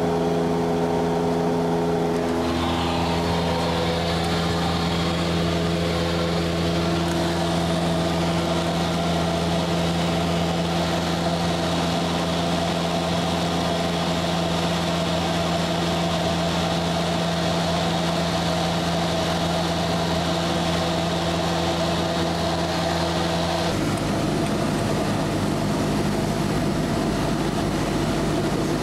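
Steady drone of a Cessna's piston engine and propeller heard inside the cabin. The pitch steps slightly about two seconds in, and the sound changes abruptly about five seconds before the end.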